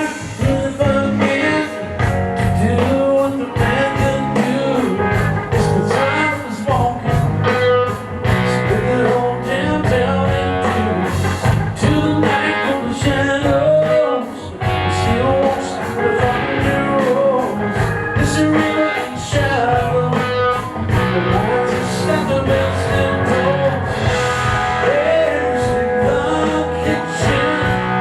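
Live blues-rock band playing loudly at a sound check, guitar to the fore, with regular drum strokes throughout.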